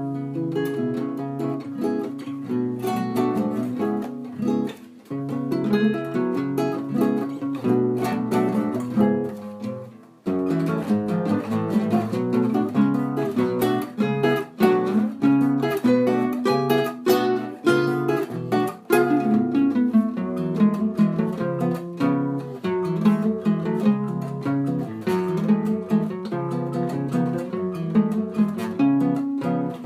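Music played on plucked string instruments: quick picked notes mixed with strumming. It drops out briefly about five seconds in and again about ten seconds in, then carries on.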